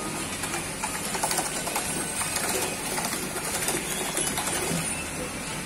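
Plastic paddle wheels of a small hand-cranked kiddie paddle boat churning and splashing shallow pool water, with irregular clicking and clatter.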